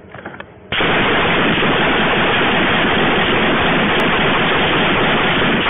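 Loud, steady static-like hiss that cuts in abruptly about a second in and holds at one level throughout.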